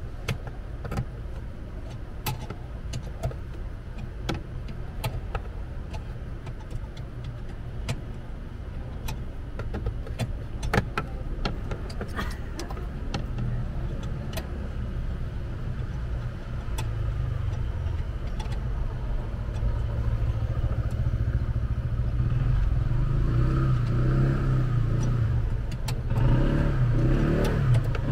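Scattered small clicks and ticks of a screwdriver working the screws of plastic centre-console trim. Under them runs a low steady hum that grows louder from about halfway and is loudest near the end.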